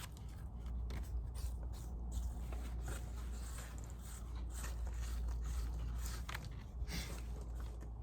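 Handling noise from working a beehive: irregular short scrapes, rustles and light clicks of hands and tools on the wooden hive parts, over a steady low rumble.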